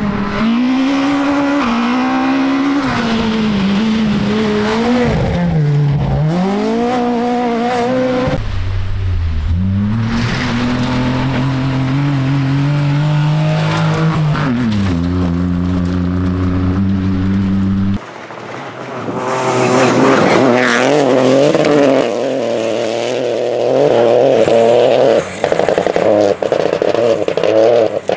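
Small 1000cc rally cars driven flat out on a gravel stage, one after another: engines revving hard and rising through the gears, with sharp drops in pitch as they brake and change down for corners.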